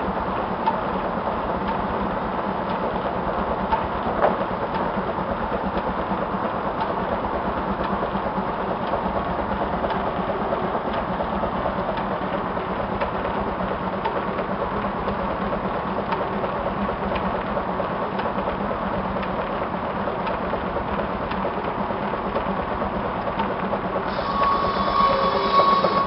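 Old engine-driven machinery running with a steady, fast rhythmic clatter over a low hum. Near the end a higher ringing tone joins in and the sound grows a little louder.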